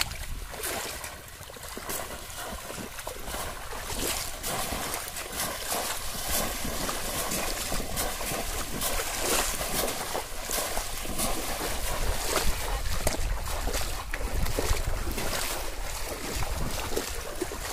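Repeated splashing and sloshing of shallow pond water as bamboo polo fish traps are thrust down into it and people wade through, with wind rumbling on the microphone.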